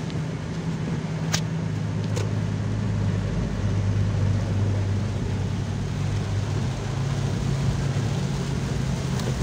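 A tanker truck's diesel engine and tyres passing close by a stopped pickup, loudest about four seconds in, heard from inside the cab over the pickup's own steady engine hum and rain on the windshield. Two sharp clicks near the start.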